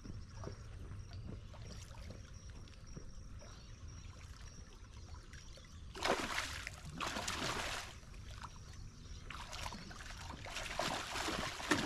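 Water splashing in bursts, starting about six seconds in and again near the end, over a low steady rumble.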